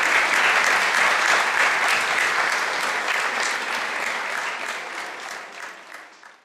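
Audience applauding, a dense patter of hand claps that fades out over the last two seconds.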